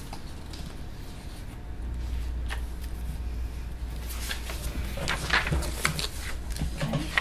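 Meeting-room background: a steady low hum, louder from about two seconds in, with scattered rustling and small knocks of papers being handled, busier in the last three seconds.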